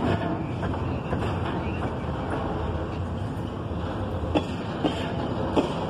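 Double-stack intermodal freight cars rolling past: a steady rumble of steel wheels on rail, with a few sharp clanks, three of them close together near the end.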